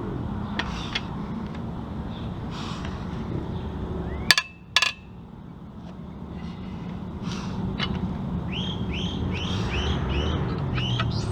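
Two sharp metallic clinks about half a second apart, metal tools knocking against the engine parts being worked on. Later a bird chirps in a quick repeated series over a steady low background rumble.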